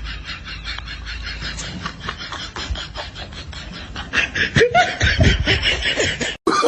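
A person laughing in quick, breathy snickers, louder from about four seconds in, cutting off suddenly near the end.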